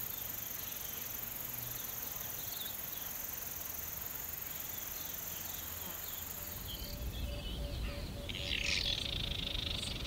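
Evening bush ambience: insects trilling steadily with small birds chirping now and then. Near the end the insect trill stops, a low rumble comes up, and a louder bird call lasts about a second and a half.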